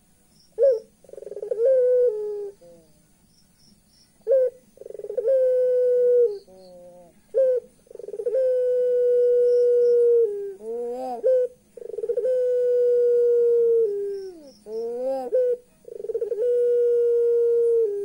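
Puter pelung (Barbary dove) giving its 'laughing' call over and over. Each phrase is a short sharp note, then a long drawn-out coo held on one pitch and dropping away at the end, then a quick rolling rise and fall. The phrases come about every four seconds, five in all.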